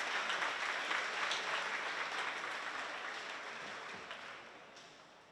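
Audience applauding, dying away over the last couple of seconds.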